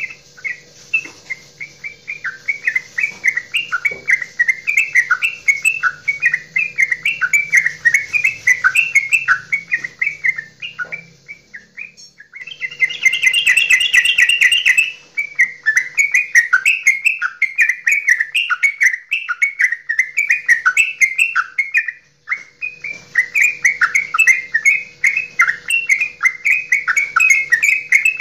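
Yellow-vented bulbul (trucukan) singing its long 'goklikan' song: a rapid, unbroken run of bubbling chirps. It pauses briefly about 12 and 22 seconds in, and is louder and denser just after the first pause.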